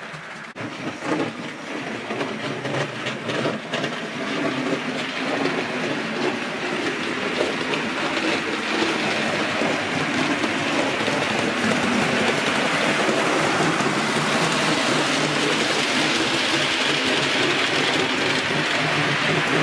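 4mm-scale model train, a tank locomotive pulling coaches, running along the layout's track: a rolling rumble of wheels on rail that grows louder over the first dozen seconds and then holds steady, with sharp clicks over rail joints in the first few seconds.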